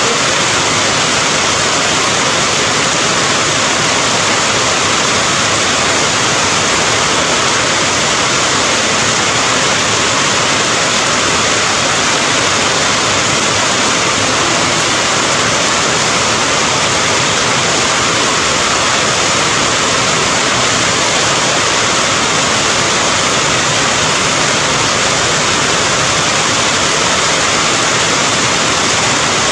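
Steady rain falling, a dense, even hiss that does not change.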